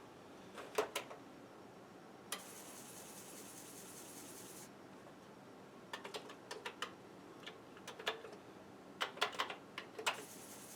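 Keystrokes on a Commodore 64 keyboard, in three short bursts of clicks as a command is typed. A faint high hiss starts and stops between them.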